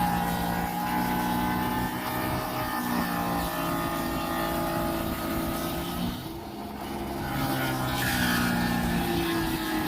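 Power-tool motor running steadily, dropping off briefly about six seconds in and then picking back up.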